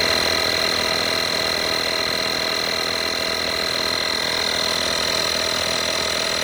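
FORTEM 12V portable tyre compressor running steadily, its small piston pump giving a continuous buzz with a high-pitched motor whine.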